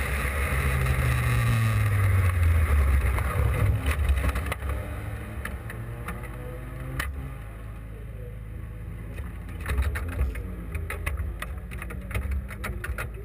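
Austin Seven racing car's small four-cylinder engine running, its revs falling over the first few seconds as the car slows, then idling quietly while the car stands still. Scattered sharp clicks and taps come in the last few seconds.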